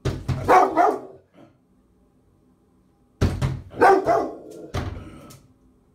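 Rottweiler barking angrily in two bouts of a few deep, sharp barks each, the second bout starting about three seconds in: protective barking at a stranger's hand.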